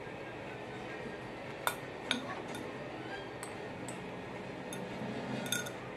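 Chopsticks clinking against a glazed ceramic bowl while eating: about half a dozen sharp, short clinks at uneven intervals, the loudest about a second and a half in.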